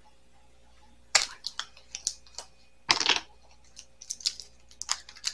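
Clicks and clatter of batteries being handled and put into plastic storage containers, starting about a second in, with a longer rattle about three seconds in.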